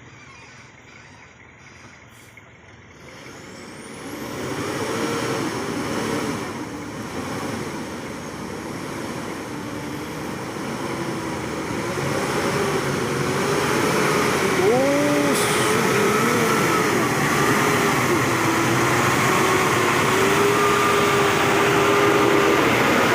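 Hino 500 Euro 4 truck's diesel engine pulling hard under load, growing louder from about three seconds in and loudest near the end, its pitch wavering as it works.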